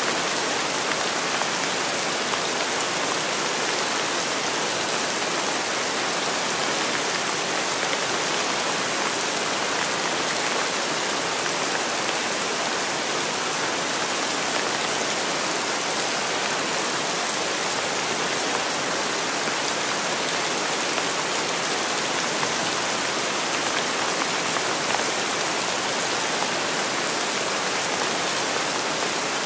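Steady rain falling, an even hiss with no let-up or change in strength.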